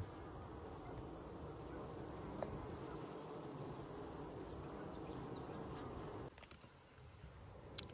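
Honeybees buzzing at a hive entrance: a steady hum of many bees flying around the landing board as foragers start leaving the hive again. The buzz drops away about six seconds in.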